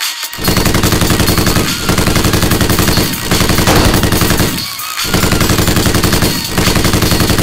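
Automatic machine-gun fire sound effect in five long bursts of rapid, evenly spaced shots, with short pauses between bursts.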